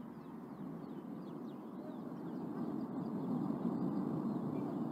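A low rushing roar that grows steadily louder, with faint, quick high chirps like small birds calling over it.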